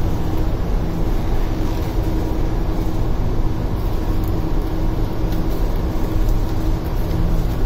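Steady drone of ship's engine-room machinery, with several constant low tones, heard in the engine control room.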